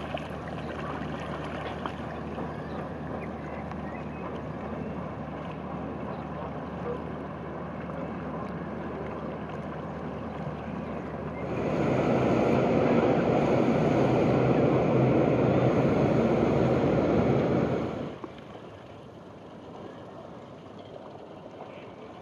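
Water lapping and wind noise on a camera riding low on a stand-up paddleboard: a steady rushing that turns much louder about halfway through for some six seconds, then drops back to a softer wash.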